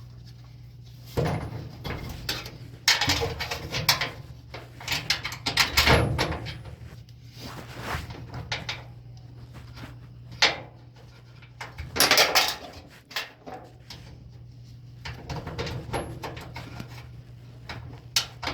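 Hand work on a dryer drum roller and its bracket: irregular clicks, clinks and knocks of small metal parts such as washers and a nut being fitted and handled, over a steady low hum.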